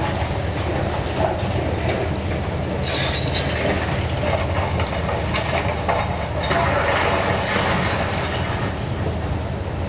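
Caterpillar UHD high-reach demolition excavator working: its diesel engine runs steadily under a dense crunching and clatter of concrete being broken up, with many sharp knocks and a brief high scrape about three seconds in.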